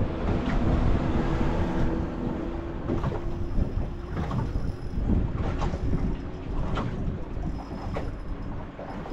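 Wind buffeting the microphone over a low rumble, with a faint steady hum in the first few seconds and a few light knocks.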